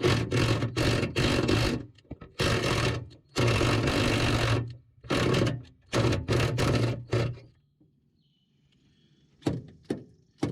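A ratchet turning a 10 mm socket on a long extension and swivel, working rusty door-latch screws back and forth in about six bursts of ratcheting to clear rust from the threads. It stops about seven seconds in, and a few light clicks follow near the end.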